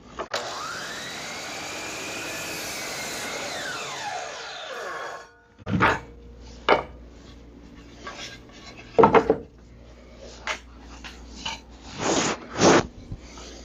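DeWalt DW718 sliding compound miter saw starting up and making a 45° cut in a piece of wood, then its motor whine falling away as the blade coasts to a stop about five seconds in. This is followed by several separate knocks of wood pieces being handled and set down.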